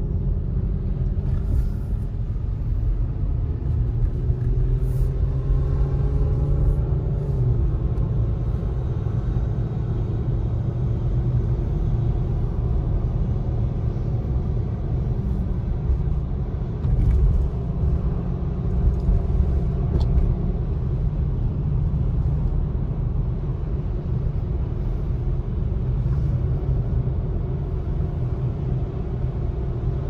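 Steady low rumble of a car's engine and tyres on wet pavement, heard from inside the cabin while driving. The engine note climbs briefly about five to seven seconds in, then settles.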